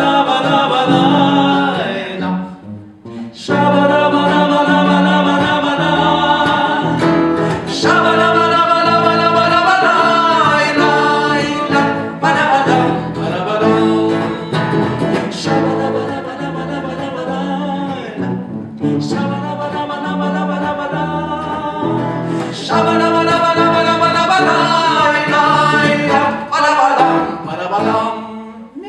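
A man and a woman singing a duet over an acoustic guitar. The music drops away briefly about three seconds in and fades near the end.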